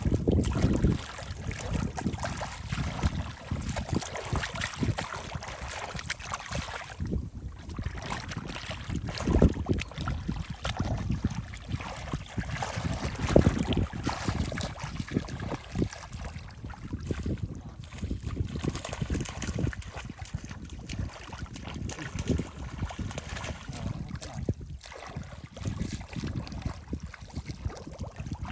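Shallow water sloshing and splashing unevenly, with many short irregular splashes.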